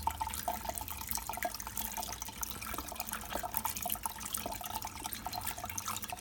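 Water trickling and splashing in a sink, with many small drips and splashes.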